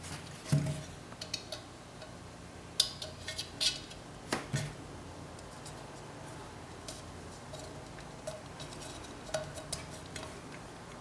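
A short metal tube and a small tin can being handled: clinks and light knocks as the tube is picked up and pushed into a hole in the can's side, louder in the first half, then fainter scattered ticks.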